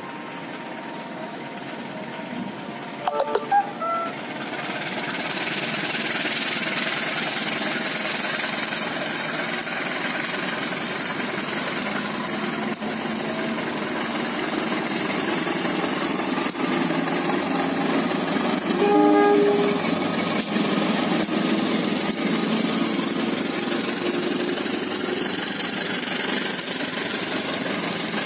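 Diesel locomotive hauling a passenger train past at speed. Its horn sounds in a few short toots about three seconds in and once more, for about a second, later on. From about four seconds in, a steady loud rumble of engine and wheels on rails builds as the locomotive arrives and the coaches roll by.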